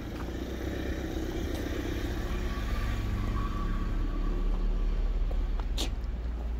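Steady low rumble of a car running nearby, with a sharp click about six seconds in.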